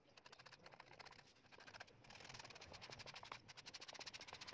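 Faint, rapid scratching of a small pointed hand scraper worked along the edge of a wooden table tennis blade, scraping off grime and damaged wood.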